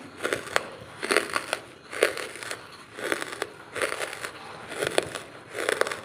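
Close-up mouth sounds of someone chewing dry lumps of charcoal: crisp, crackly crunches about once a second.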